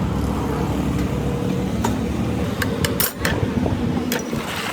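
A machine running with a steady low hum, with a few sharp clicks or taps from about two seconds in.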